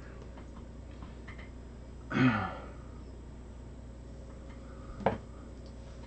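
A man clears his throat about two seconds in. Near the end comes one sharp click of wire snips cutting through cable.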